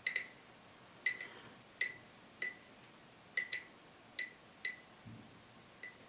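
A paintbrush tapping and clinking against the glass of a water jar as it is rinsed. There are about ten short ringing clinks at uneven intervals.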